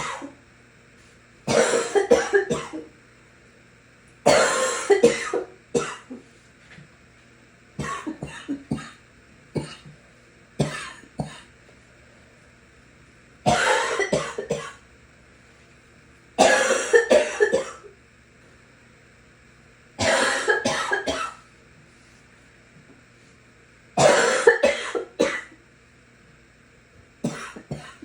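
A sick person coughing in repeated fits, about nine bouts, each a cluster of several quick coughs, coming every three to four seconds.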